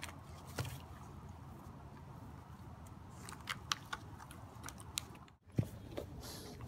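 German shepherd chewing a stick, its teeth cracking the wood in a scatter of sharp snaps and clicks, over a steady low background rumble. After a brief break, a dog mouths a toy ball with a single sharp click.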